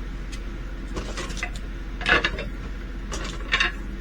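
Small plastic bags of resin diamond-painting drills being handled and pressed shut: light rustles and clicks, louder about two seconds in and again near the end.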